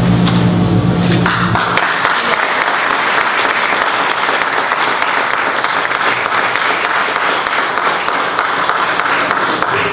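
Audience applauding, starting about a second and a half in and holding steady. Before it starts there is a steady low hum.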